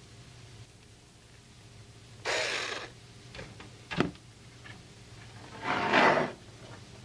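Computer parts being handled during motherboard mounting: two short scraping, sliding sounds with a sharp knock between them, over a low steady hum.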